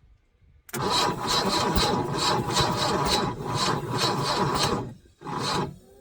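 Hand tool scraping or rasping in quick back-and-forth strokes, about three a second, for about four seconds, then one short stroke near the end.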